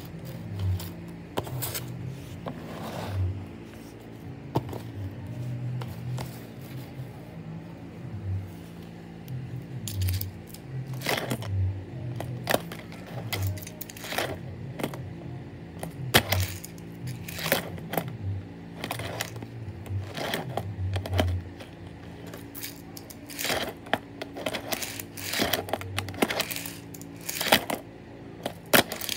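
Cardboard cereal box being folded and pressed against a tile floor by hand: irregular taps, clicks and light scrapes, with a few dull low thumps and a steady low hum underneath.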